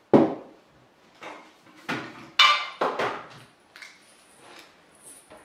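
Dishes being handled: a series of knocks and clinks, the loudest about two and a half to three seconds in, one of them briefly ringing.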